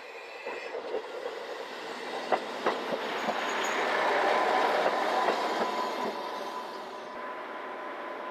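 Diesel railcar pulling into a station: its wheels click over rail joints, and the rumble swells as it passes and then eases off as it slows. A thin steady squeal of the brakes comes in from about halfway.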